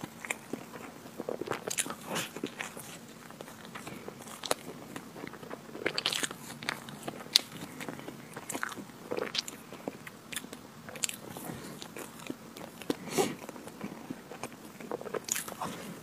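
A person biting and chewing chocolate ice cream cake close to a clip-on microphone: irregular crunches and small sharp clicks.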